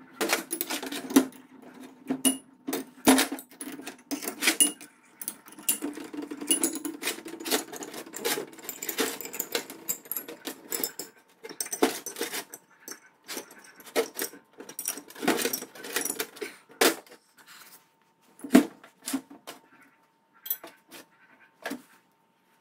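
Steel chain sprocket, bolts and machined carrier parts clinking and clattering against a metal workbench as they are handled and fitted together. The sharp knocks come thick at first, then thin out, with one loud knock late on.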